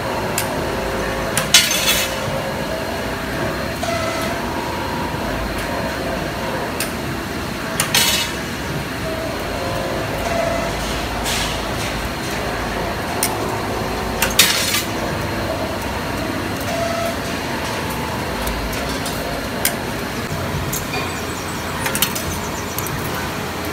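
CNC 3D wire bending machine running: a steady mechanical hum with short whines from its motors as the wire is fed and bent, broken by a sharp clack about every six to seven seconds, four times in all, with lighter ticks between.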